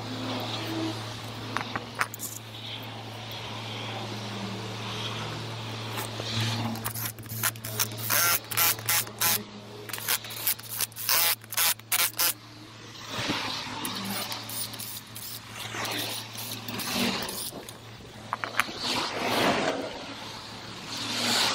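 Short bursts from a cordless impact wrench running the wheel nuts of a small tow-dolly wheel, about a second in each, between about seven and twelve seconds in. A steady low engine hum runs underneath, and handling and scraping noises follow.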